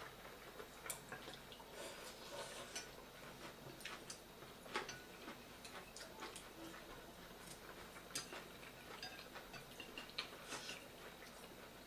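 Close-up eating sounds: faint chewing with irregular small wet mouth clicks and smacks.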